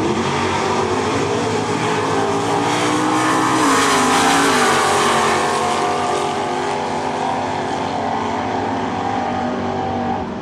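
Two Super Stock drag cars launching side by side at full throttle and running down the quarter mile. Their engine pitch climbs for about four seconds, drops at a gear change, then the sound eases as they pull away.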